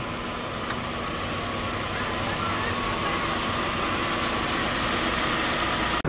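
A motor vehicle engine idling steadily amid a constant outdoor hiss.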